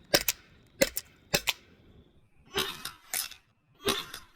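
T4E HK VP9 .43 calibre CO2 paintball pistol firing a string of about six shots, sharp pops roughly half a second to a second apart. Some shots are doubled by a second crack close behind.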